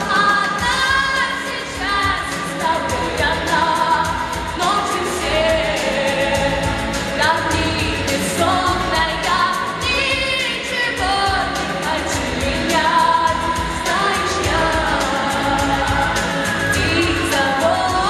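A female vocalist singing a pop song live into a microphone over an instrumental backing track, holding long notes with vibrato above a steady bass line.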